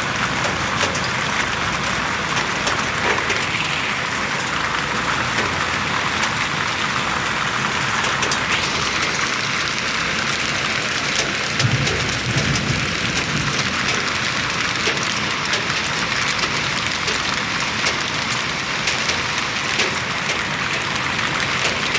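Heavy hailstorm: a steady downpour of rain and hail striking surfaces, with many fine sharp ticks. A brief low rumble comes about twelve seconds in.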